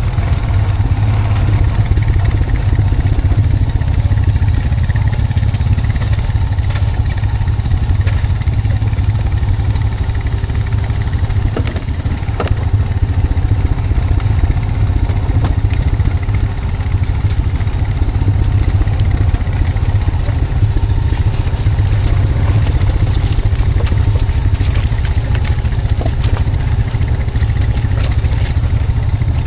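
Honda Foreman 520 ATV's single-cylinder engine running steadily under load as it tows a log on a skidding arch, with scattered clicks and knocks from the ride.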